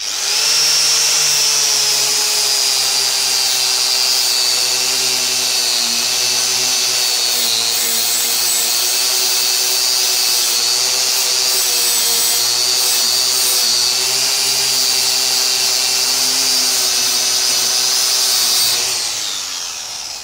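Corded angle grinder with a twisted-knot wire brush running at full speed against a steel chainsaw guide bar, stripping surface rust: a steady high whine with brushing noise. It starts at once and winds down with falling pitch near the end.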